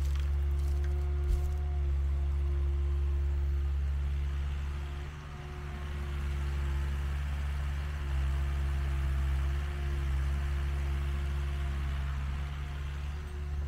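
Mini excavator's diesel engine running steadily under work, a low drone with a faint steady higher tone over it, easing off briefly about five seconds in.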